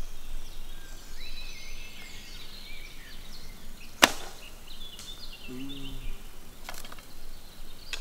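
A bow shot: the bowstring snaps sharply on release about halfway through, followed by fainter knocks. Small birds chirp in the background, and a brief low grunt is heard shortly after the shot.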